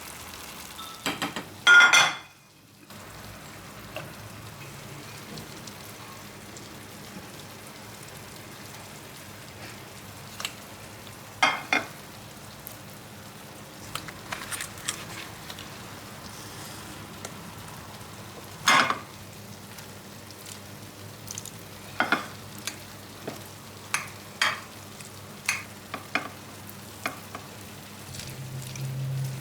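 Food sizzling as it fries in a pan, with scattered sharp clinks and scrapes of a utensil stirring it. One loud knock about two seconds in.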